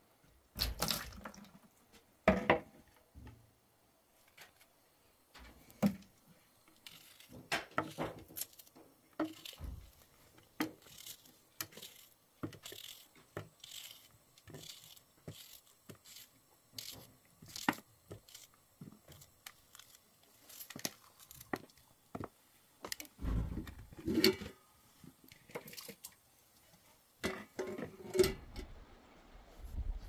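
Small knife slicing a tomato by hand over a plastic bowl: a run of short, irregular cuts and taps, with a few heavier knocks from the bowl and kitchenware being handled.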